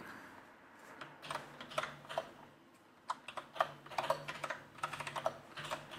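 Typing on a split ergonomic computer keyboard: irregular key clicks that start about a second in, pause briefly around the middle, then pick up again more densely.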